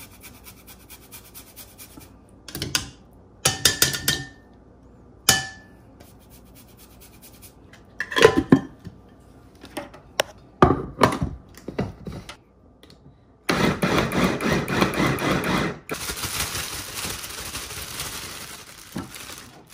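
Kitchenware knocking and clinking in a series of separate clanks, a few with a short metallic ring. In the second half this gives way to several seconds of steady hissing.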